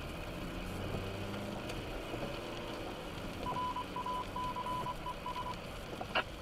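Steady noise of a car driving on a rain-soaked road, heard from inside the cabin. Partway through, a quick run of short, high electronic beeps lasts about two seconds, and a single sharp click comes near the end.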